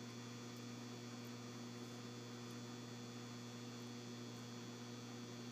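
Steady electrical mains hum, a low buzzing tone with higher overtones, unchanging throughout.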